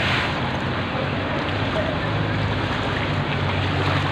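Floodwater sloshing and splashing as someone wades through it, over the steady low hum of an idling truck engine.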